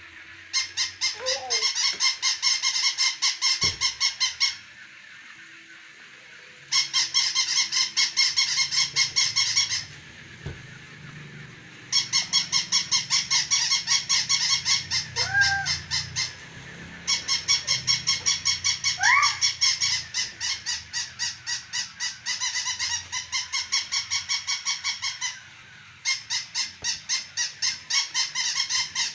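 Battery-operated plush toy dog sounding its electronic yap through a small speaker: quick, evenly repeated beeping barks, about four a second. The barks come in runs of a few seconds with short pauses between.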